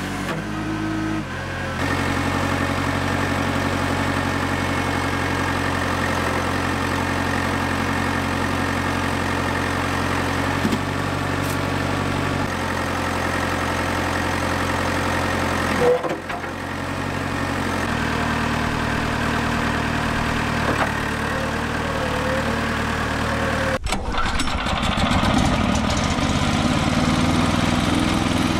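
JCB backhoe loader's diesel engine running under hydraulic load, its note stepping up and down as the arm works the concrete rubble, with one short loud knock about halfway through. About four seconds before the end, a sudden change to a small petrol engine driving a homemade jaw crusher, with a fast mechanical clatter.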